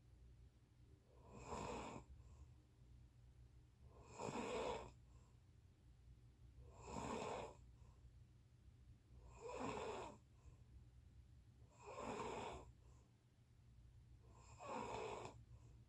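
A person snoring loudly and regularly: six snores, each just under a second long, about every two and a half to three seconds, over a steady low hum.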